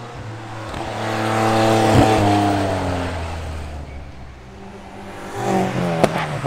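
Vintage open-cockpit sports racing car passing at speed on a race circuit: its engine swells to the loudest point about two seconds in, drops in pitch as it goes by, then fades. Near the end another car's engine comes in, rising, with a sharp click.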